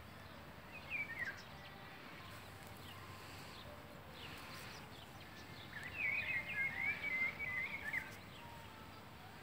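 Faint songbird song over a quiet outdoor hush: a short chirp about a second in, then a quick warbling phrase of high notes lasting about two seconds near the end.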